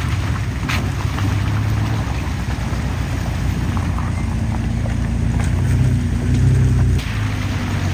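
Four-wheel-drive vehicle driving slowly on a rough trail: a steady low engine and drivetrain rumble, with a sharp knock about a second in and another near the end.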